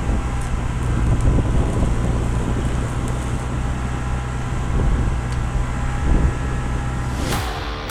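Case CX75SR compact excavator's diesel engine running steadily through its freshly re-welded and clamped muffler. The engine sound stops suddenly near the end, and guitar music begins.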